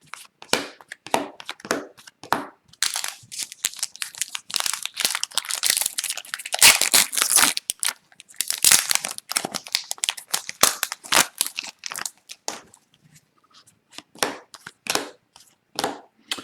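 Hockey card pack handling: a foil card-pack wrapper crinkling and tearing, with cards rustling, sliding and tapping against each other. The rustling is densest through the middle and thins to scattered clicks near the end.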